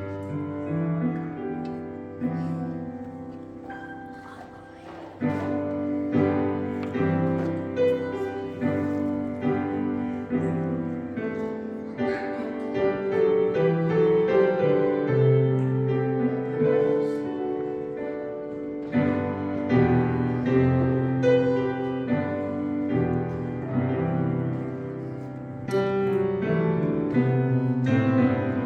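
Piano playing a slow offertory piece in sustained chords and melody. It is quieter at first and grows fuller about five seconds in.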